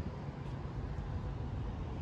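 Outdoor city street ambience: a steady low rumble with a faint hiss above it.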